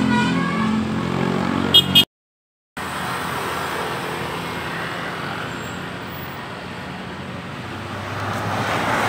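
A bus engine running close by, ending in two short sharp blips and an abrupt cut to dead silence. After the cut comes steady roadside traffic noise, growing louder near the end as another vehicle approaches.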